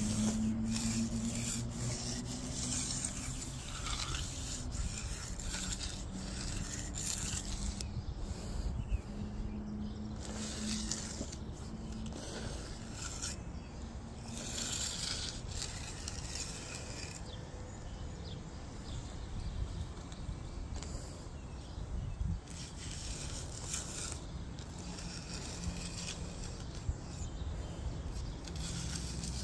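Steel hand edger scraping along the edge of freshly poured wet concrete, in repeated strokes.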